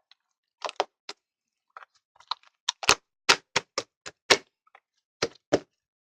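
Slime being pressed and poked by hand, giving a string of sharp clicking pops as trapped air bursts. A few scattered clicks come first, then a quicker run of louder pops about three seconds in.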